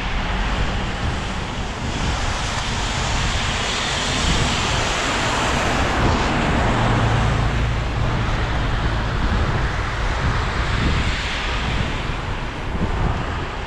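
Traffic passing on a wet street, the tyres hissing on the wet asphalt. A city bus goes by close about five seconds in, its engine droning low as it passes, and a car follows later.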